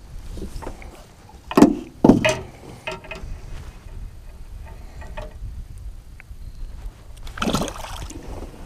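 Knocks and bumps in a small fishing boat: two loud ones close together about one and a half and two seconds in, a few light ticks, and a softer clatter near the end, over a low background rumble.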